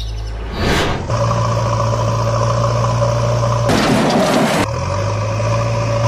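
Heavy diesel engine sound effect running steadily, laid over a toy backhoe loader pushing a toy truck upright. Short rushes of noise break in about half a second in and again around four seconds in.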